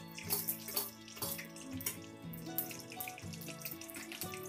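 Hot oil sizzling and crackling in a steel kadai as chana dal and peanuts fry in a mustard-seed, cumin and curry-leaf tempering, with background music of held notes underneath.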